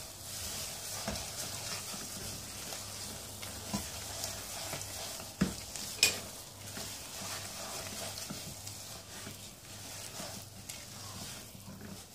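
Spatula stirring and scraping thick almond burfi dough in a nonstick pan, with the freshly added ghee sizzling softly. Two sharp knocks of the spatula against the pan come around the middle.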